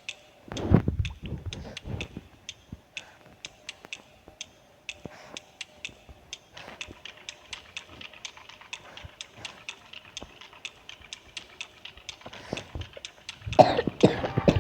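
Steady light clicking, about three clicks a second, with a low thump about a second in.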